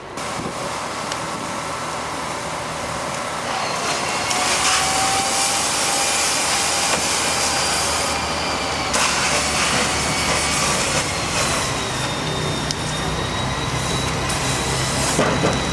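Fire hose spraying water and foam onto a burning car: a loud, steady hiss of spray and steam that grows louder about four seconds in, over a steady low engine rumble.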